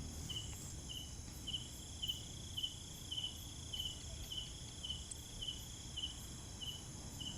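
Crickets chirping in the dark: a short, even chirp repeating about twice a second over a steady high-pitched insect drone.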